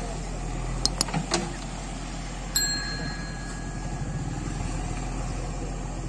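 JCB 3DX backhoe loader's diesel engine running steadily as the backhoe works in the water. A few short metal clanks come about a second in, and a sharp clank about two and a half seconds in rings briefly.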